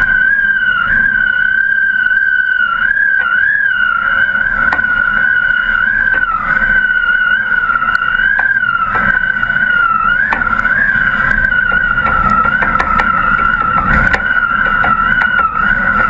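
A steady high whistle that wavers slightly in pitch, over a low rush of wind noise: wind singing on the taut line that carries the camera above the kite-foiling rider.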